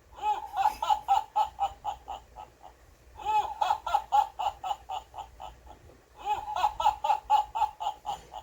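Alarm clock sounding a recorded laugh-like call: a run of rapid 'ha-ha-ha' pulses, about five a second and fading, that repeats identically about every three seconds and stops just before the end.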